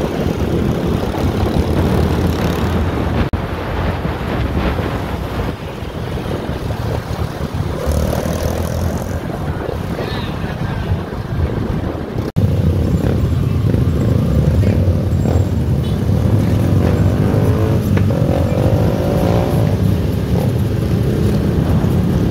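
Steady rumble and wind noise of a moving road vehicle. There is a brief break about twelve seconds in, after which the low rumble is louder.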